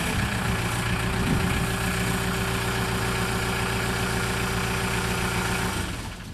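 1998 Scat Trak 1300C skid steer loader's 49 hp engine idling steadily, then dying away about six seconds in as it is shut off.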